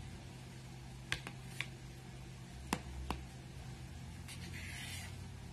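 A knife and spoon cutting a slice from a cake and working under it: a handful of light clicks as the metal touches the serving tray, then a soft scrape near the end, over a steady low hum.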